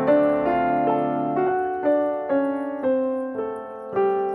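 Background piano music: a slow melody of single notes, about two a second, each struck and fading.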